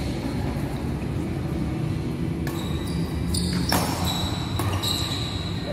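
Badminton rally: sharp racket hits on the shuttlecock, starting about two and a half seconds in and coming several times in the second half, with short high squeaks of court shoes on the floor. Steady low background noise of the sports hall underneath.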